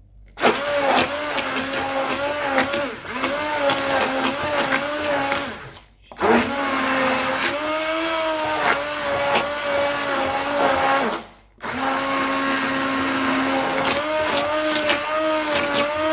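Handheld immersion blender running in liquid cake batter in three bursts of about five seconds each, with short pauses between, its motor pitch wavering slightly under load.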